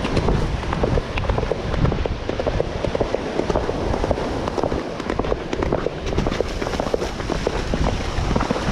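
Wind buffeting the microphone of a rider at a gallop, with a dense, irregular crackle of clicks and thuds from horses' hooves striking wet sand.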